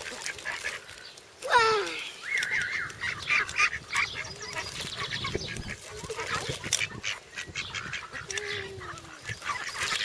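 Mallard ducks quacking and calling as they crowd round people for food, with a quick run of short repeated quacks about two seconds in.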